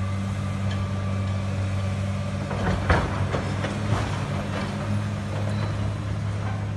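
An engine idling steadily, a low even hum, with a few sharp knocks and clanks about three seconds in and again near four seconds.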